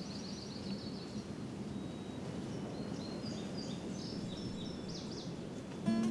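Small birds chirping in short, high runs of calls over a steady low background hiss of outdoor ambience. Acoustic guitar music comes in just at the end.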